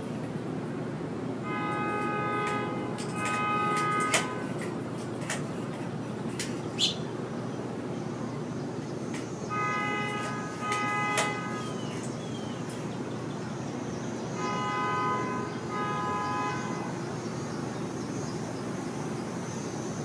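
A horn sounds three times, each time a pair of long, steady blasts. Under it runs a steady background rumble, with a few sharp clicks in between.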